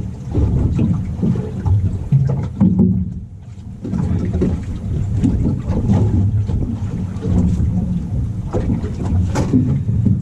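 Boat on the water: an uneven low rumble with scattered short knocks, dipping briefly about three seconds in.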